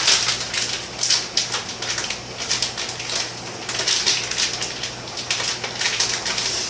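Plastic food packaging crinkling and rustling in the hands, many quick crackles, as a stubborn bag is pulled and worked to get it open.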